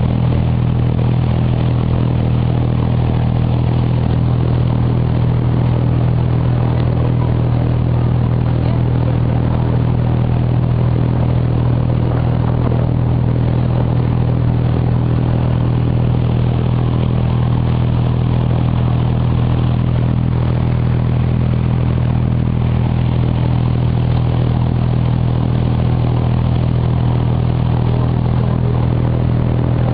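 A water taxi's diesel engine running steadily, an even low drone that holds the same pitch and level throughout.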